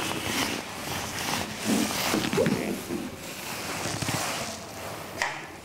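Scratching of writing strokes as a derivation is written out, with brief low murmurs of a voice about two seconds in.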